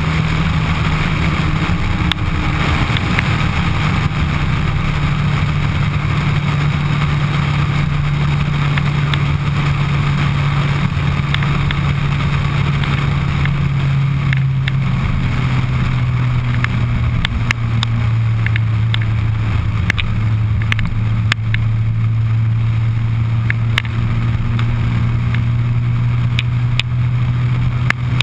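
Suzuki Hayabusa's inline-four engine running steadily at highway cruise. Its note drops a little about halfway through as the revs ease off, then holds steady again.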